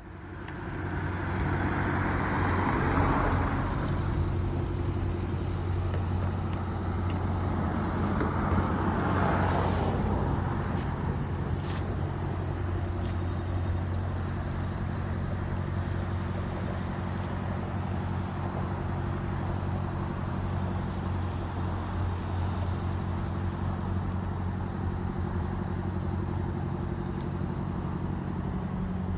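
Cat 303.5E2 mini excavator's C1.7 diesel engine running at a steady pitch, fading in over the first second. Two swells of higher rushing noise rise over it, about two and about nine seconds in.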